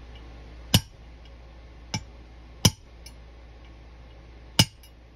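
Small hammer tapping a punch to drive a new main air bleed into a Quadrajet carburetor air horn, seating it square with the top. There are four short, sharp metallic taps at uneven gaps, and the second is lighter.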